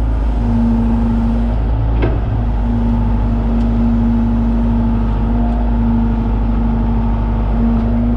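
John Deere 190E excavator's diesel engine running steadily under digging work, with a humming tone that cuts in and out several times and a light knock about two seconds in.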